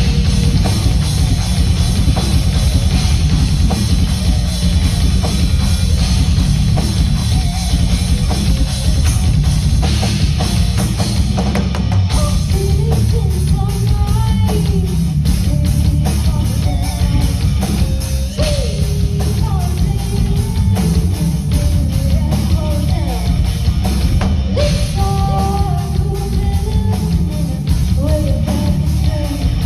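Rock band playing live through a PA: distorted electric guitar, bass and drum kit, with a voice singing from about halfway through.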